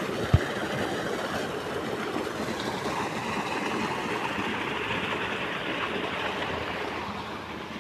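Water gushing from pipe outlets into a concrete irrigation basin, a steady rushing splash. A single short knock about a third of a second in.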